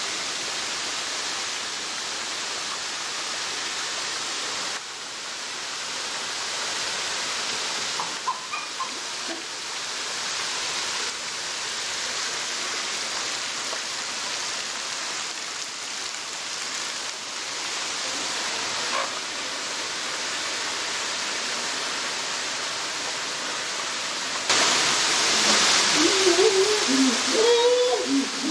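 A steady rushing of water that grows louder about three-quarters of the way in. A few short wavering calls are heard near the end.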